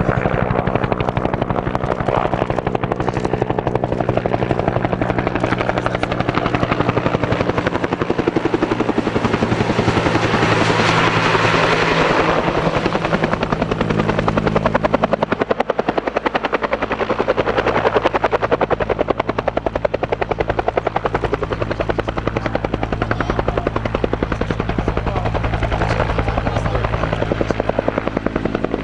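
UH-1 utility helicopter running close by, the rapid beat of its two-bladed main rotor over a steady turbine whine, as it flies in low and sets down. The sound swells louder about a third of the way in, as it passes nearest.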